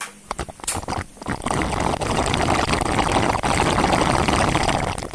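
Milk tea being slurped through straws from plastic cups, several people at once: a few clicks and taps of straws in the cups, then from about a second and a half in a loud, steady sucking noise of drink and air drawn up the straws.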